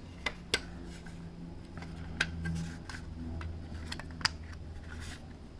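Irregular small clicks and taps of a circuit board and plastic charger case being handled as a replacement power supply board is fitted into a LiPo charger, with the loudest click about four seconds in, over a low steady hum.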